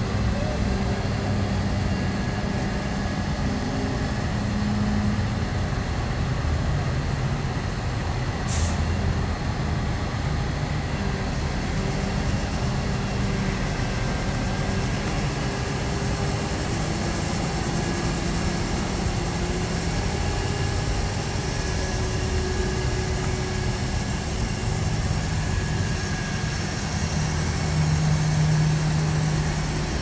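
Boom crane truck's diesel engine running steadily, driving the hydraulics as the boom hoists a rooftop air-conditioning unit; its hum shifts a little in pitch. A brief high-pitched hiss or squeak comes a little over eight seconds in.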